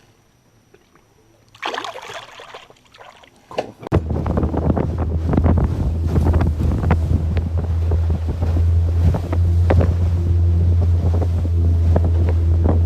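Boat outboard motor running at a steady pitch, with wind buffeting the microphone and water splashing against the hull. It starts abruptly about four seconds in, after a quiet stretch with one brief rush of noise.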